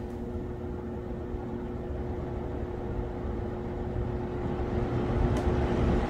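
Electric stand fan running with its speed set by a homemade TRIAC dimmer, the motor and blade air noise growing louder toward the end as the control knob is turned up.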